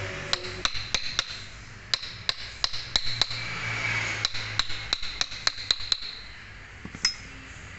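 A hammer tapping a steel socket used as a seal driver, seating the inner oil seal into a Toyota Kijang power steering pump housing. The taps are light and metallic with a short ring, about three a second with brief pauses. They stop about six seconds in, followed by one last tap near seven seconds.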